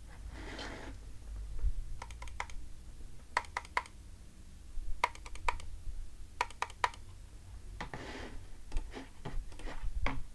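Akko 5075 mechanical keyboard fitted with Princess linear switches being typed on, in short bursts of three to five keystrokes with pauses between.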